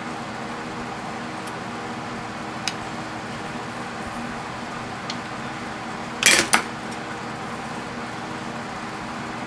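Small metal parts and tools clicking and clattering as a microwave's small fan motor is taken apart by hand, with a louder double clatter about six seconds in, over a steady background hum.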